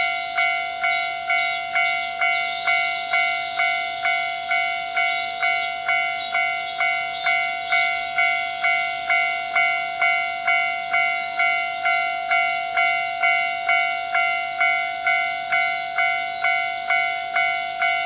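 Japanese railway level-crossing warning bell ringing: an electronic ding struck at an even pace, a little over twice a second, over a steady high hiss.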